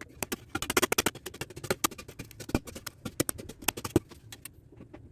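Birds at a water drinker making quick, irregular clicks and taps, dense in the first half and thinning out near the end.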